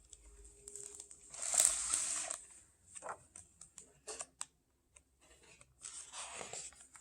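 Pages of a picture book being turned and handled: a paper rustle about a second and a half in, a few small clicks and taps, then another rustle near the end.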